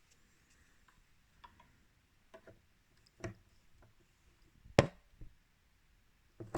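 Microphone, cable and connectors being handled to hook a mic up to the amplifier: a string of irregular clicks and knocks, the loudest a sharp click nearly 5 seconds in and another knock at the end.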